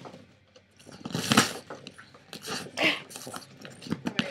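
Boston Terrier biting and tearing a cardboard box: a few short bursts of cardboard ripping and crunching, after a quiet moment at first.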